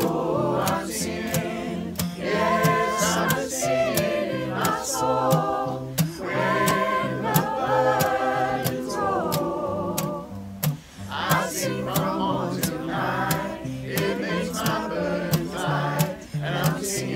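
A mixed gospel choir singing a song in several voice parts over a steady beat, with a brief break in the singing about ten seconds in.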